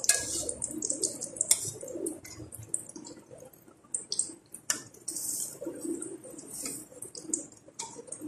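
Shakarpara dough pieces deep-frying in hot ghee in a metal kadai, the ghee sizzling and crackling steadily. A few sharp clicks and scrapes come from a slotted spoon against the pan as the pieces are turned over.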